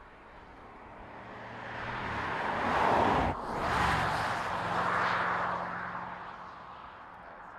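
2020 Audi S8's twin-turbo V8 and tyres in a drive-by: the engine note and tyre noise grow louder as the car approaches, peak as it passes about three to five seconds in, then fade as it drives away.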